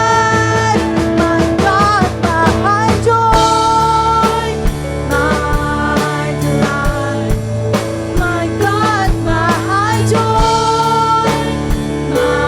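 Worship band music with drum kit and guitar, its melody held in long notes. Twice, about two seconds in and again around eight to nine seconds, the melody line breaks into a quick run of sliding, bending notes.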